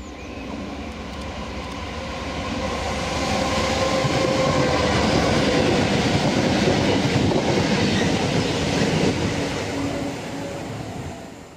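EWS Class 66 diesel-electric locomotives, with their EMD two-stroke V12 engines, approaching and passing: the engine drone and wheel clatter build up, are loudest mid-way as the locomotives go by, and fade away near the end.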